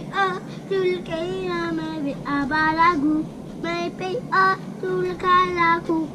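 A young child singing: a string of short held notes with brief breaks between phrases.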